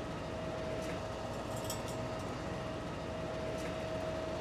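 Steady low mechanical hum, like an idling engine, with a constant thin whine above it.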